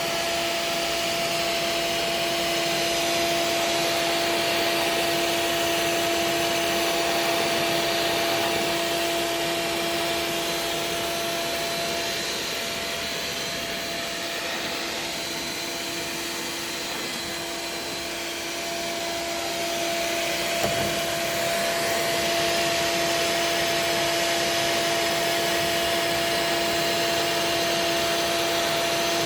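Hand-held hot-gas extrusion welder running steadily while welding polyethylene: the hiss of its hot-air blower over a steady motor hum. It eases off slightly for a few seconds in the middle.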